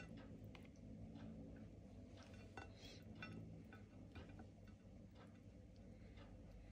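Near silence with a handful of faint, scattered clicks and light taps as hands roll up a filled shrimp-and-vegetable wrap on a plate.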